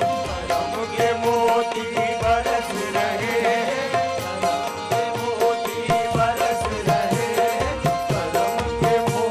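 Live qawwali ensemble music: harmonium playing a repeated melodic phrase over steady tabla and dholak drumming.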